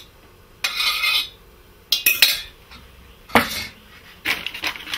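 A spoon scraping the last of a thick, creamy soup out of a steel saucepan in several short separate strokes, with clinks of metal on metal and a louder knock about three and a half seconds in.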